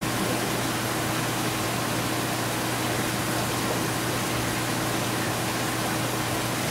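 Steady low electrical hum under an even, constant hiss, with no change or events.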